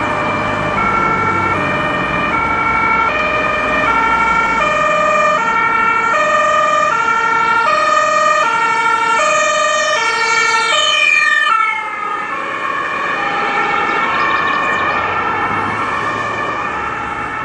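German ambulance two-tone siren alternating between a high and a low pitch, about three quarters of a second per tone, over traffic noise. About two-thirds of the way through, the pitch slides down as the ambulance passes, and the siren carries on lower and softer as it drives away.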